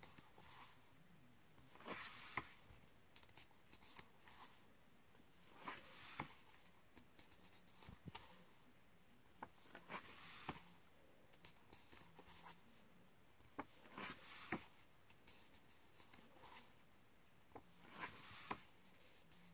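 Pages of a paper colouring book being turned one by one: five faint paper swishes and flaps about four seconds apart, with small paper ticks between.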